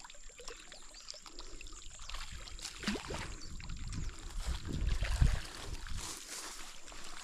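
Water splashing as a hooked fish thrashes at the surface of a pond while being reeled in toward the bank. The splashing is loudest about five seconds in.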